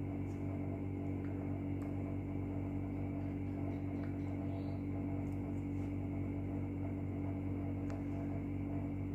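A steady, unchanging low drone at a constant pitch, with a few faint taps of a stylus tip on a tablet's glass screen, one near the end.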